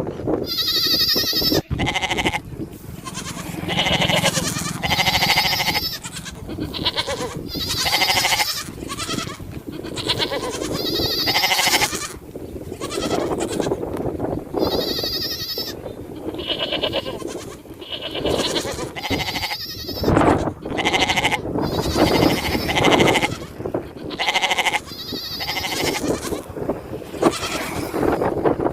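Sheep bleating over and over, one call after another, each lasting about a second.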